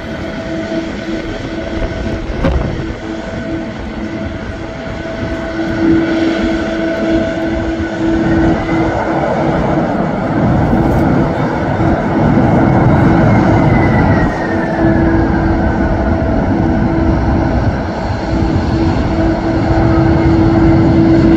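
Jet airliner's turbofan engines running, a steady whine over a rumbling roar; a higher tone rises slowly and then falls away in the middle.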